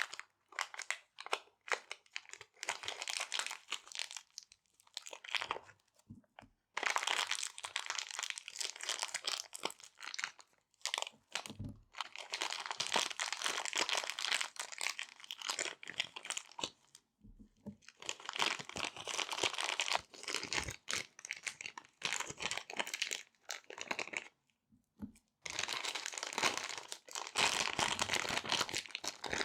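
Small resealable plastic bags being handled and crinkled close to the microphone. The crinkling comes in stretches of a few seconds with short pauses and scattered small clicks between them.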